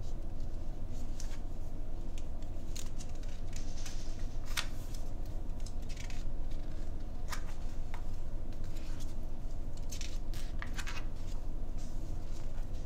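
A picture book being opened and its pages turned: scattered short paper rustles and soft clicks over a steady low hum.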